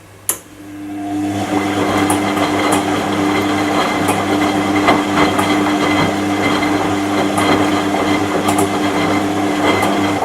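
Washing machine: a click, then a loud, steady whirring run with a constant hum and scattered small knocks, which builds up over about a second and cuts off abruptly after about ten seconds.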